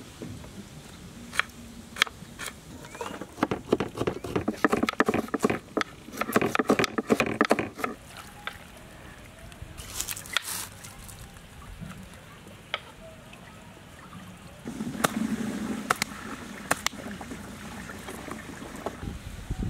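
Kitchen knife slicing red onion on a wooden chopping board: sharp taps of the blade on the board, scattered at first, then a quick dense run of cuts a few seconds in.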